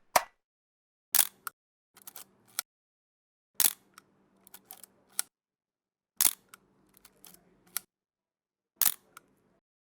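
Sharp mechanical clicks, four in all, one roughly every two and a half seconds. Each loud click is followed by a few fainter ticks.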